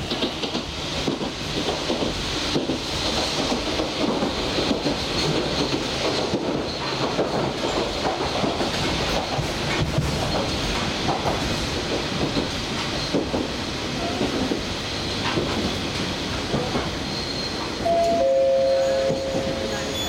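Toyama Chiho Railway electric train running, heard from inside the car: a steady rumble of wheels on rail and the train's own running noise. Near the end a steady two-tone horn sounds for about two seconds, louder than the running noise.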